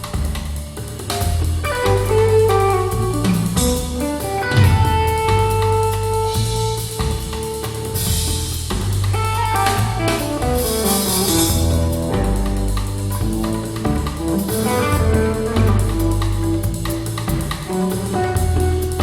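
Instrumental music with drum kit, bass and guitar, played back through a pair of hi-fi bookshelf loudspeakers for a listening comparison.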